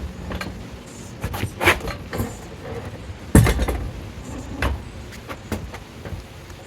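Scattered metal clanks and knocks from a heavy backhoe attachment being let down slowly, with one heavy thump about three and a half seconds in.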